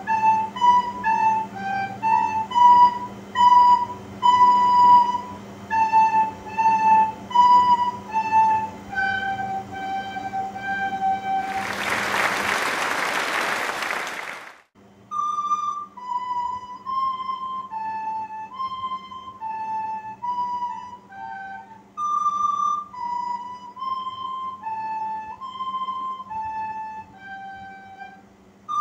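Two soprano recorders playing a simple melody in short notes, ending on a long held note about eleven seconds in. A loud hiss then fills about three seconds before the recorders begin a new simple tune.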